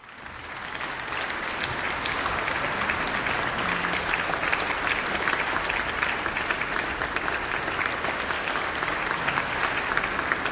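Large audience applauding steadily, the clapping fading in over the first second or so.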